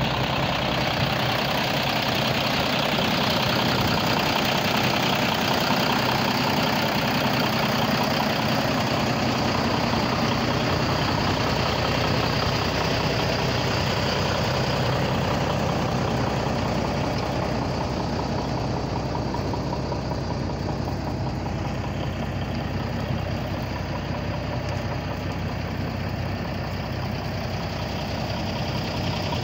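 1998 Ford semi tractor's diesel engine idling steadily.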